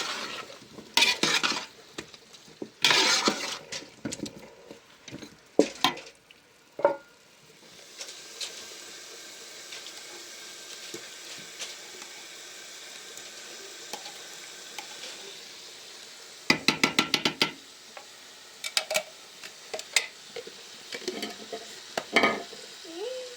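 Pots and utensils clattering, then a steady sizzling hiss for several seconds, followed by a quick run of clicks and a few more clanks.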